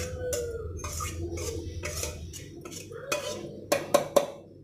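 A metal spoon scraping fried masala out of a metal pan into a steel mixer-grinder jar: repeated scrapes and clinks of metal on metal, then three sharp clinks close together near the end.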